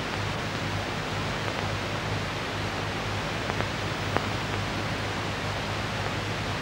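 Steady hiss with a low electrical hum and two brief clicks about halfway through: the noise floor of an old film soundtrack.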